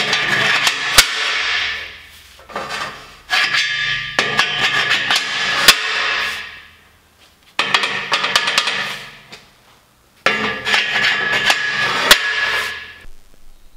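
Steel catch being worked against the steel box-section upright of a squat rack: four bouts of metal scraping and clanking, each two to three seconds long, with a sharp clank in three of them and the steel ringing throughout.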